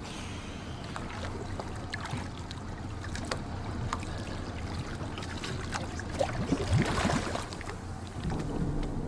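Water sloshing around a small boat, with scattered knocks and clicks; the water sound swells louder about seven seconds in. Background music comes in near the end.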